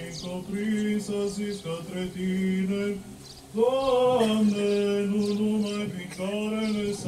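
Male voice chanting Orthodox liturgical chant, holding long steady notes. About three seconds in the chant briefly drops away, then comes back louder on a higher, bending phrase.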